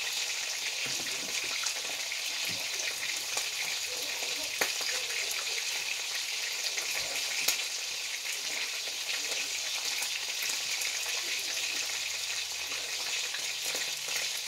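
Frying sizzle from hot oil in a pan: a steady hiss full of small crackles, with a sharper pop about four and a half seconds in and another about seven and a half seconds in.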